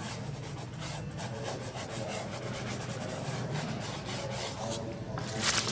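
A fingertip dragging softly across soft pastel on paper, blending the chalky layers. It makes a steady, scratchy rubbing hiss that grows louder briefly near the end.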